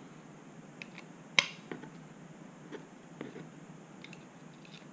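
Small clicks and taps of a hex screwdriver and carbon-fibre frame parts as arm screws are tightened into a drone frame's metal clamp plate, with one sharper click about a second and a half in.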